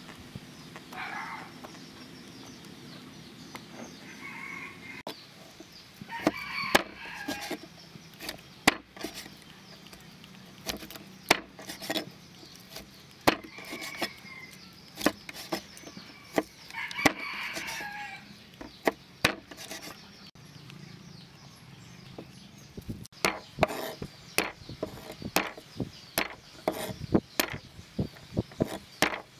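A knife chopping on a wooden cutting board, through eel and then garlic, in sharp, irregular knocks. A rooster crows and chickens cluck several times in the background.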